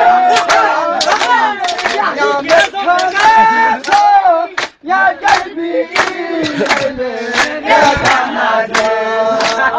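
Men singing a tarana in chorus, over a steady beat of sharp percussive strikes about three times a second.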